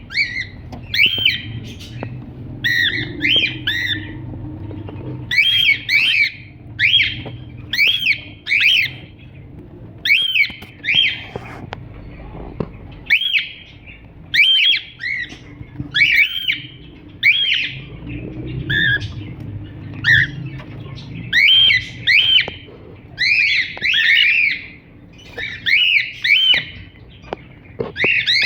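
Cockatiel calling over and over with short, arching chirps, roughly one or two a second, in clusters.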